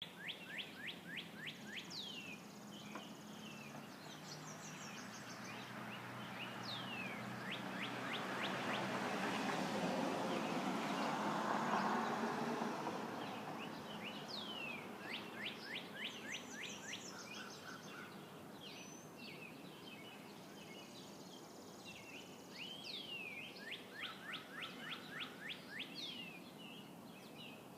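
Songbirds singing, with rapid trills of quick downward-sweeping chirps repeated again and again. Partway through, a broad rush of noise swells up and fades away beneath the birdsong.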